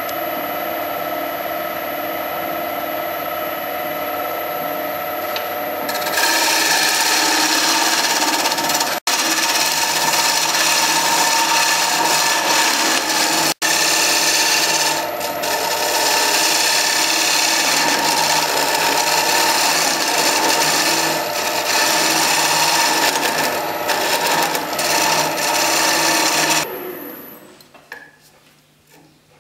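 Wood lathe motor running with a steady whine; about six seconds in, a turning tool bites into the spinning wooden spindle with a loud scraping hiss as a tenon is cut on its end. The cutting goes on with two momentary breaks and stops near the end.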